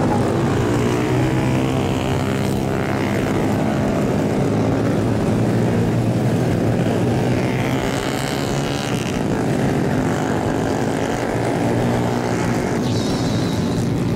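Several Honda Grom mini bikes' single-cylinder engines running hard past on a race track, their pitch rising and falling as the riders accelerate and shift.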